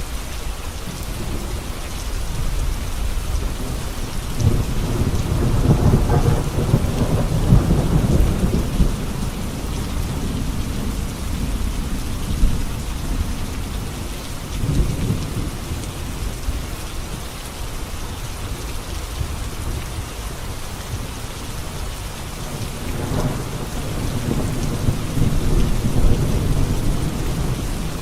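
Heavy rain falling steadily on a road, with low rolls of thunder swelling up about five seconds in and again near the end.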